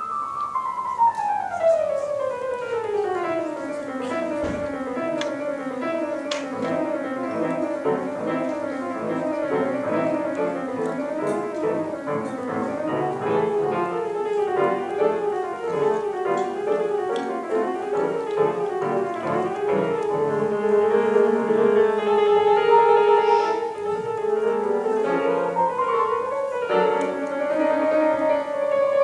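Grand piano played solo. It starts suddenly with a run falling from high to low over about the first four seconds, then goes on in dense, many-noted playing.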